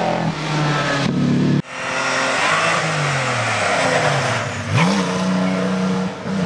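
Vintage racing-car engines at full throttle: a Riley Special running hard past, then, after an abrupt break about a second and a half in, the Halford Special accelerating up the hill. Its engine note falls away and then sweeps sharply up again near the end of the run.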